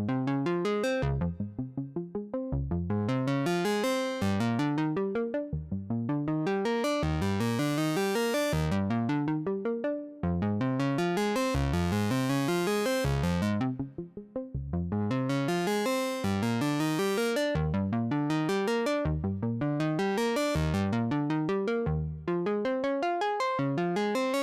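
Elektron Analog Keys analog synthesizer playing a Juno-60-style patch: fast arpeggiated notes climbing in repeated runs, the tone brightening and darkening in slow swells.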